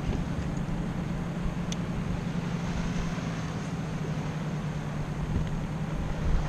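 A steady low motor hum, constant in pitch, under wind and water noise, with a few faint ticks.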